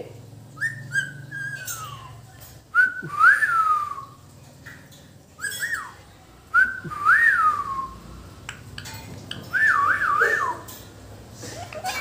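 A person whistling to a pet parrot: about five short whistled phrases, each a clear note sliding up and then down, the last a quick warble up and down three times.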